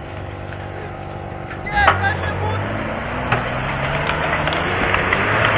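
Off-road vehicle engine running steadily, then revving higher from about three seconds in, with rising noise toward the end. A short sharp sound comes about two seconds in.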